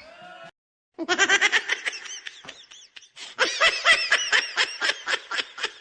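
Rapid, high-pitched laughter in quick repeated bursts. It starts about a second in, eases briefly around the middle, then comes back.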